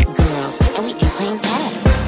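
Pop/hip-hop music with a heavy, steady beat of about three strikes a second under a vocal line that bends in pitch.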